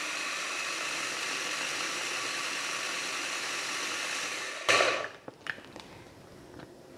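Kenwood kMix mini chopper running steadily for about four and a half seconds, pulsed by pressing its lid, whizzing a liquid dressing. It stops with a louder clunk, followed by a few faint clicks.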